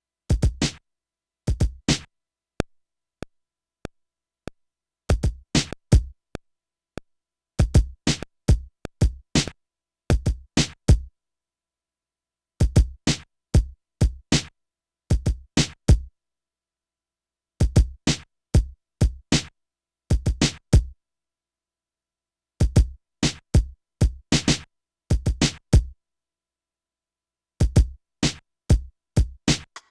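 Akai MPC playing dry, sampled drum hits: short kick-heavy strikes in clusters of a few beats, separated by stretches of complete silence, as a sparse beat pattern.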